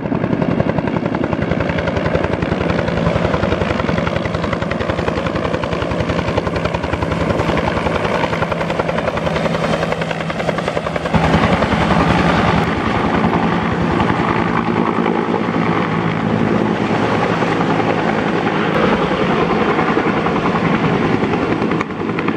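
Bell 205 (civilian UH-1H Huey) helicopter flying close by, the rapid, steady beat of its two-bladed main rotor over a steady engine hum. It gets louder about eleven seconds in.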